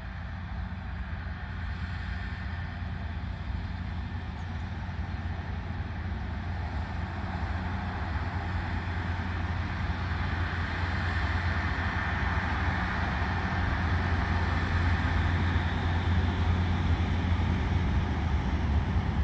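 Freight train hauled by a locomotive approaching on the station track: a steady low engine hum with wheel and rail noise, growing louder as it draws closer.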